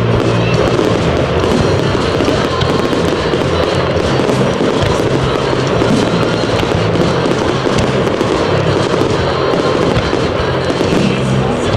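Fireworks display in a dense barrage: a continuous stream of crackles and bangs, loud throughout, with music playing underneath.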